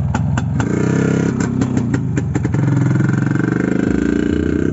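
Two-stroke motorcycle engine popping at a slow, even beat, then revved up about half a second in and held at higher revs, its pitch rising and falling.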